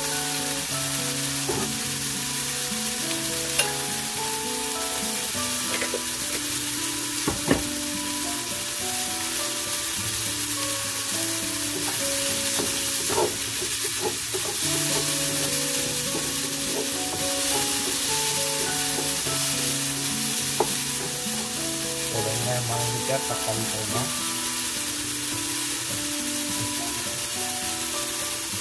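Chopped onions, bell peppers and green chillies sizzling in hot oil in a nonstick pan, stirred with a wooden spatula that knocks against the pan a few times. A melody plays underneath.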